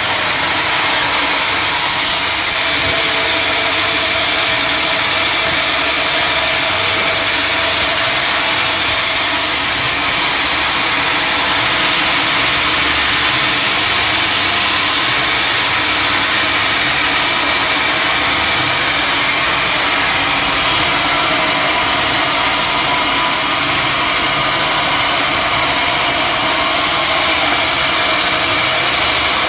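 Engine-driven sawmill saw running steadily: a loud, even noise with no breaks or changes.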